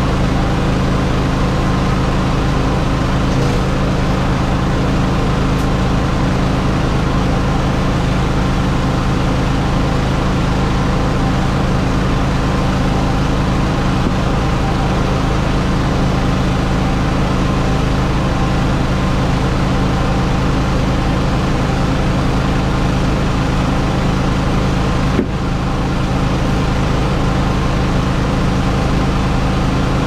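An engine running steadily at one constant speed, a continuous low droning hum with no change in pitch. There is a brief click about 25 seconds in, after which the level drops slightly.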